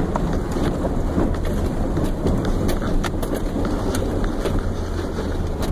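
A vehicle driving slowly over a rough, rocky track, heard from inside the cab: a steady low engine and road rumble with scattered knocks and rattles from the body and suspension as it bounces over stones.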